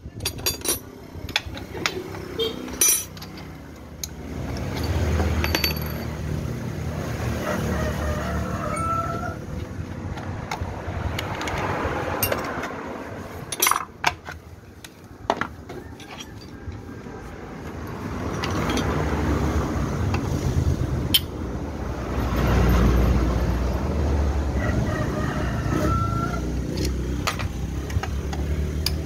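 Motor traffic passing by in several slow swells that rise and fade, with a few sharp metal clinks of hand tools on the scooter.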